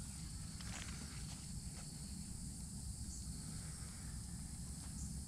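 Steady, high-pitched insect chorus over a low rumble, with a few faint ticks.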